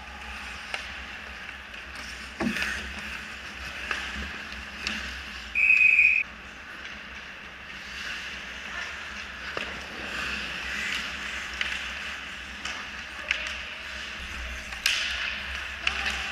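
Ice hockey play heard from behind the goal: skate blades scraping on the ice, with scattered sharp clacks of sticks and puck. A short, shrill whistle blast about six seconds in is the loudest sound.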